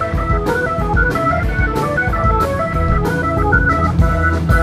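Live instrumental band music led by an organ sound from a keyboard, with electric guitar and electric bass, and a steady beat of percussion hits.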